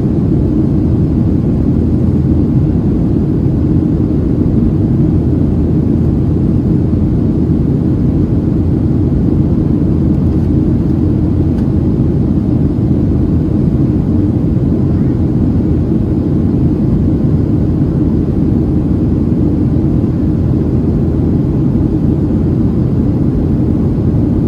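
Steady, loud rumble of a Boeing 737-700's CFM56-7B jet engines and rushing airflow heard from inside the cabin as the airliner climbs out after takeoff.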